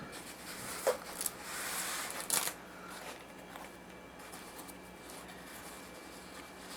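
Hands unwrapping a package: rustling and crinkling of plastic wrapping, with a few short sharp rips in the first few seconds as cellophane tape is pulled off, then softer rustling.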